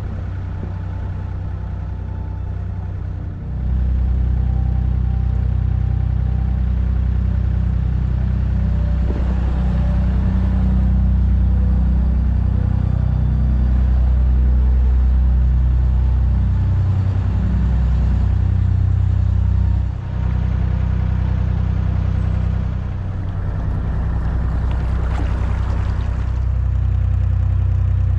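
Boat engine running steadily under way, stepping up in level about three and a half seconds in.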